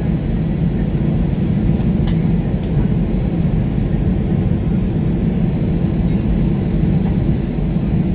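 Airbus A320ceo cabin noise while taxiing after landing: a steady low rumble from the engines at low power and the airframe, with a few faint rattling clicks about two to three seconds in.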